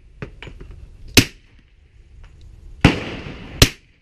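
Three suppressed pistol shots from a 1911 fitted with an Advanced Armament suppressor, about a second in, near three seconds and just before the end; the second shot is followed by a longer fading tail.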